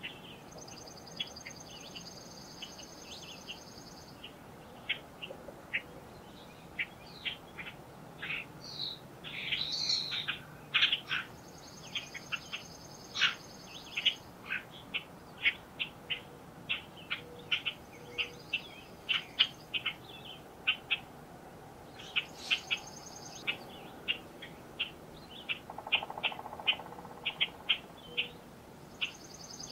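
Woodland birds singing: a steady stream of short chirps and whistled notes, and a high, dry trill lasting a couple of seconds that recurs about five times.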